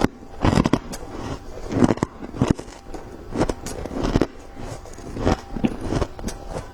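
A person biting and chewing white freezer ice: a run of sharp, irregular crunches, several a second.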